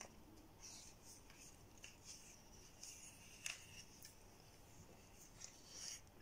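Near silence, with faint rustling of things being handled and a few small clicks, the sharpest about three and a half seconds in.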